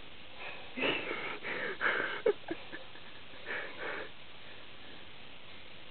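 Short breathy sounds close by, sniffing and hushed breaths, in two clusters about a second in and again around three and a half seconds, with one sharp click near the end of the first cluster.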